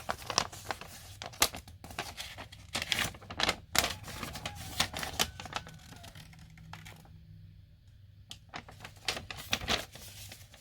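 Irregular clicks, taps and rustling of paper and plastic packaging as the contents of a toy's box are handled and unpacked, with a quieter stretch about two thirds of the way through.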